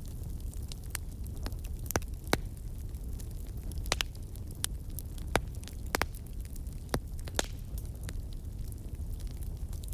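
Campfire burning: wood crackling with irregular sharp pops over a steady low rumble of the flames. The loudest pop comes a little over two seconds in, with a cluster of pops between four and six seconds.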